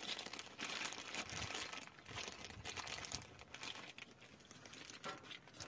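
Packaging being handled: irregular rustling and crinkling with small light knocks.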